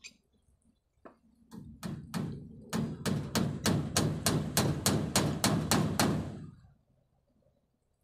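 Hammer blows on a timber frame: a few spaced strikes, then a quick steady run of about three to four a second that stops about six seconds in.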